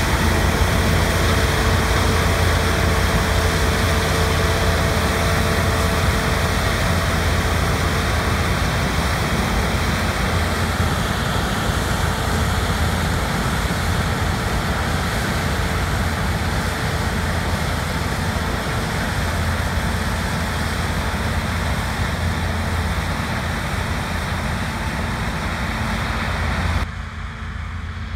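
Heavy farm harvest machinery running: a steady diesel engine drone under a loud rushing mechanical noise. The sound drops suddenly and gets quieter near the end.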